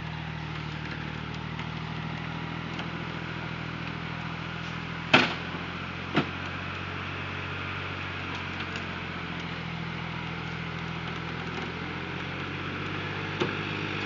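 New Holland TT60 tractor's diesel engine running steadily under load while it pulls a log-laden sled up a slope on a cable. Two sharp knocks come about five and six seconds in, and a lighter one near the end.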